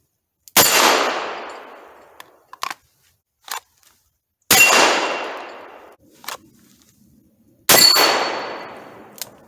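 Three shots from a Ruger GP100 .357 Magnum revolver, about three to four seconds apart, each ringing out for over a second. A few short clicks fall between the shots.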